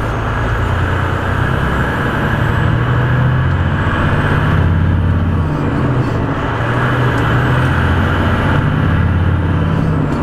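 Semi-truck diesel engine running under load, heard from inside the cab over steady road and tyre noise, its note stepping to a new pitch about halfway through and again near the end.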